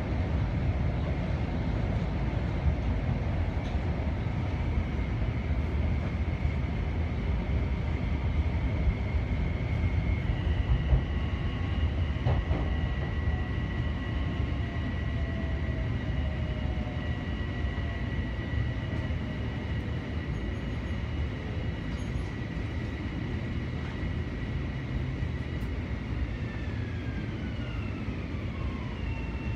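Interior of an electric Metro-North commuter train in motion: a steady low rumble of wheels on the track under a thin electric motor whine. Near the end the whine slides down in pitch as the train brakes into a station.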